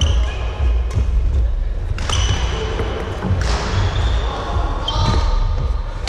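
Badminton rally on a wooden sports hall floor: rackets striking the shuttlecock with sharp cracks several times, and shoes squeaking on the court, echoing in the large hall.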